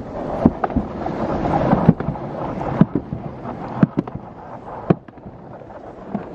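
Alpine slide sled running fast down its trough-shaped track: a steady rolling rumble with sharp knocks about once a second, and wind on the microphone. The rumble eases after about three seconds.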